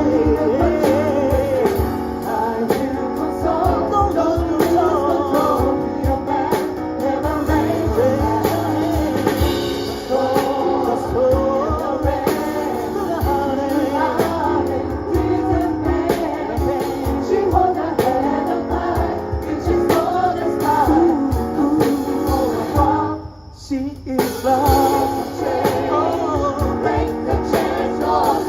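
Gospel choir singing live with keyboard and percussion, drum strokes keeping a steady beat under the voices. About 23 seconds in the music stops short for about a second, then the choir and band come back in.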